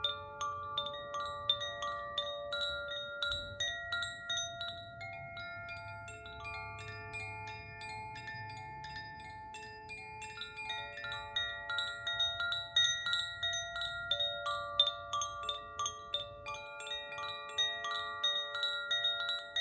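Koshi chimes being swayed, their clappers striking the tuned rods many times a second. Several bright notes ring on and overlap into a shimmering cluster.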